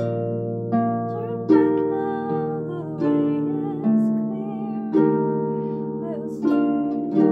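Concert harp played: plucked chords ring out about once a second over sustained bass notes, with a woman's voice singing along softly.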